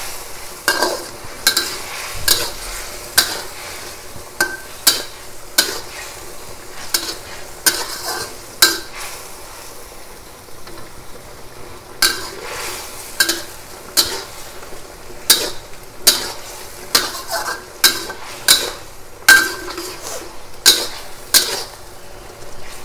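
Metal spatula scraping and knocking against a metal wok as chunks of eggplant are stirred in their cooking liquid, over a steady sizzle. The strikes come about once a second and pause for a few seconds near the middle.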